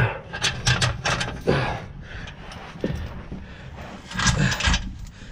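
Steel chain clinking and rattling in short, irregular clicks and scrapes as it is wrapped through a spare wheel to lock it against theft, with a louder flurry of rattling about four seconds in.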